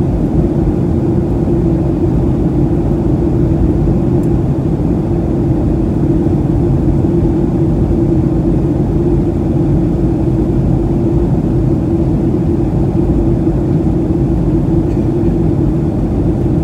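Steady cabin noise of a Boeing 737-700 in flight, the drone of its CFM56-7B engines and the airflow, with a constant low hum.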